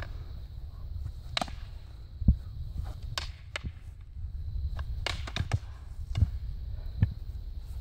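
Fighting sticks clacking together during sparring: about ten sharp cracks at irregular intervals, some in quick runs of two or three, over a steady low rumble.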